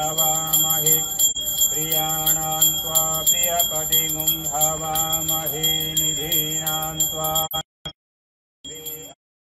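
A puja bell ringing steadily over male voices chanting Sanskrit mantras. The audio cuts out twice near the end.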